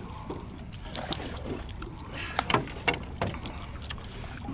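Paddles of a six-person outrigger canoe stroking through the water, with a steady rush of water and wind on the microphone. A few sharper splashes stand out, about a second in and again between two and a half and three and a half seconds in.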